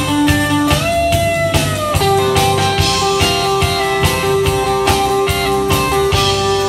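Live country band playing an instrumental passage: guitars, bass and drums keep a steady beat under a lead line of long held notes, one of which slides in pitch about a second in.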